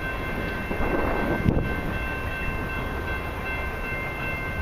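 Low, steady rumble of a freight train out of sight, with several faint steady high-pitched tones over it. A short bump about a second and a half in.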